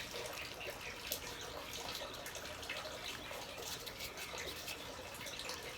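Faint rustling and small scattered clicks of potting soil and pebbles being handled while planting succulents.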